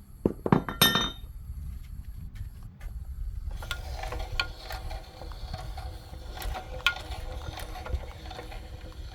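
Metal clinking from tools and parts being handled: a few sharp ringing clinks in the first second, then lighter scattered clicks and rattling.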